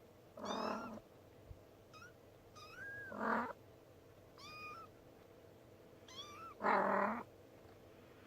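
A young kitten mewing repeatedly in thin, high calls every second or so. Three louder, rougher cries come among them, near the start, in the middle and near the end.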